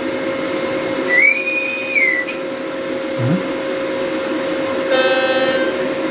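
Leica HistoCore Pearl tissue processor playing its alarm sounds as a test through its speaker. A smooth beep of about a second comes about a second in. Near the end a shorter, harsher buzzing tone follows, over a steady hum.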